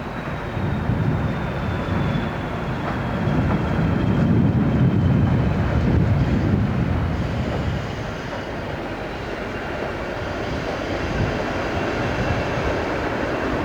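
A train running past: a low rumble that swells to its loudest in the middle and eases off, with a faint high whine slowly falling in pitch over the first half.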